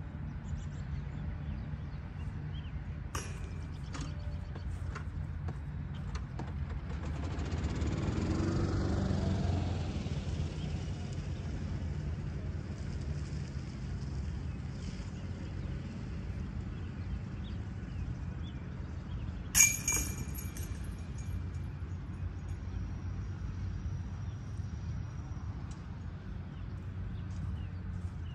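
Outdoor ambience with a steady low rumble. A few light metallic clinks come about three to five seconds in, from a putt hitting the chains of a distant disc golf basket. A passing vehicle swells and fades around eight to ten seconds, and a single sharp, ringing metallic clink sounds about twenty seconds in.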